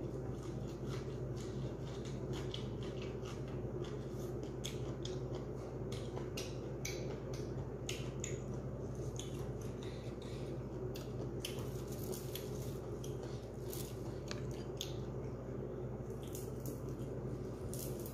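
Close eating sounds: wet chewing and mouth smacks with many short clicks, and the handling of fresh leafy greens being picked off their stems, over a steady low hum.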